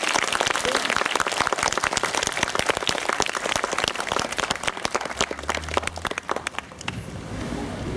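Audience applauding, many hands clapping densely before the clapping thins out and dies away near the end.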